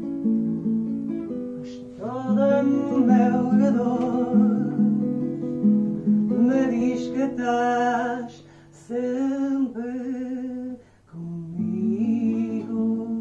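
Acoustic guitar playing a fado accompaniment, with a voice singing long, wavering phrases over it from about two seconds in. The singing breaks off briefly twice, and the guitar carries on alone near the end.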